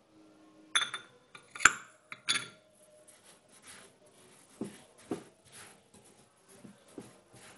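Metal wire whisk stirring granulated sugar in a glass mixing bowl. It clinks sharply against the glass several times in the first two and a half seconds, loudest about a second and a half in, then goes on in softer, uneven strokes.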